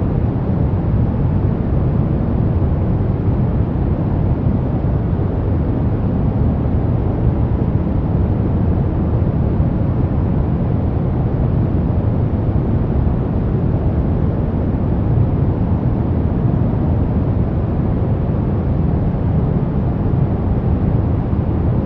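A steady low rumble of noise that stays even throughout, with no tones, voices or sudden sounds.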